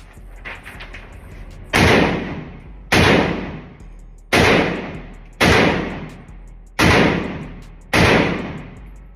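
Six gunshots fired one at a time at a steady pace, a little over a second apart, starting nearly two seconds in. Each shot is a sharp crack that rings out and fades over about a second.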